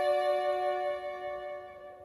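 Two violins holding a single sustained chord that slowly fades away: the closing chord of the piece.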